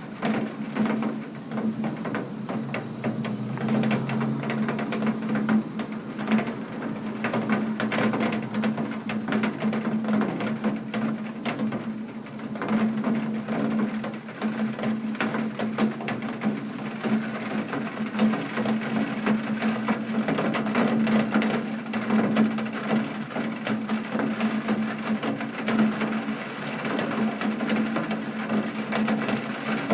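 Rain falling, with dense, irregular drops tapping on a hard surface close by and a steady low hum underneath.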